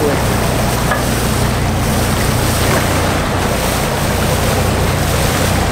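Large boat under way at slow speed: a steady low engine hum under the rush of its churning wake, with wind buffeting the microphone.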